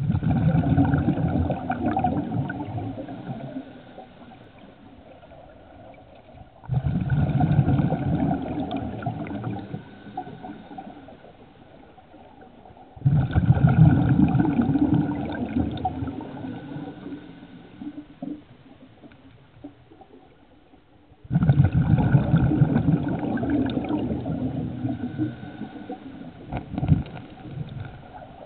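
Scuba regulator exhaust bubbles heard underwater: four exhaled breaths, each starting suddenly and fading over a few seconds, with quieter gaps between.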